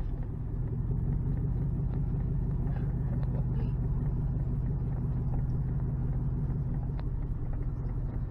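Truck engine running, heard from inside the cab as a steady low rumble.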